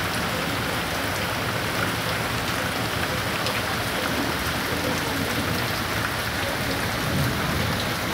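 Heavy rain pouring steadily onto paving stones, a dense even hiss of water with faint scattered drop splashes.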